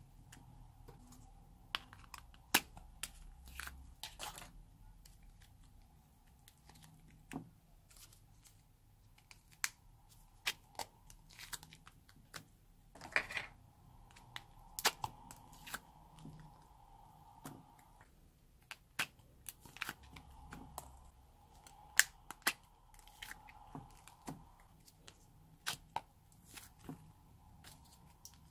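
Small plastic pots of modelling clay being squeezed and pressed out by hand onto slime: irregular sharp clicks and crackles of thin plastic, some much louder than others.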